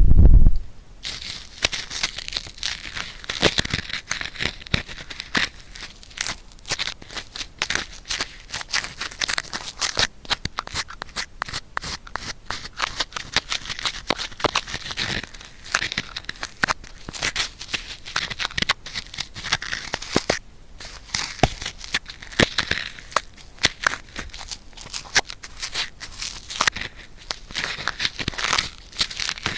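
An adhesive cotton swab scraping and rubbing inside an ear close to the microphone: a dense, irregular crackle of small scratches and sticky clicks. A breath blown into the ear ends just at the start.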